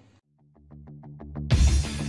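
Electronic outro music: after a brief silence, a run of quick ticking notes grows louder, then a loud hit with deep bass lands about one and a half seconds in.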